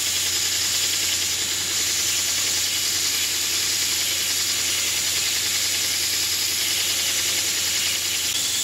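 Belt grinder running while a small piece of 10-gauge brass plate is held against the abrasive belt and its edges are ground even. It makes a steady, loud grinding hiss over the motor's low hum.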